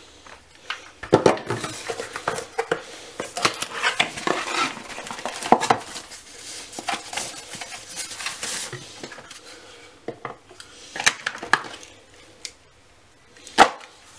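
Packaging being handled: a soft wrap rustling and crinkling while a hard plastic charger and its cardboard box click and knock. The busiest handling is in the first two-thirds, with a few separate knocks near the end.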